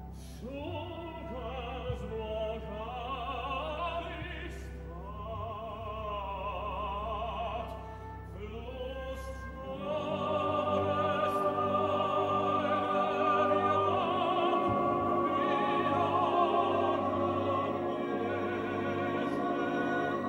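Operatic solo voice singing with wide vibrato over an orchestra; about halfway through the orchestra swells and the music grows louder.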